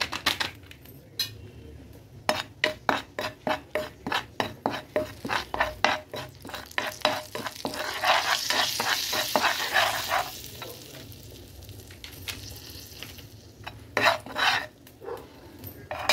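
A spatula stirring and scraping red chilli powder and sambar masala in hot oil in a frying pan, about three strokes a second. The spices sizzle, with the hiss loudest about eight seconds in, as the tadka for sambar is cooked.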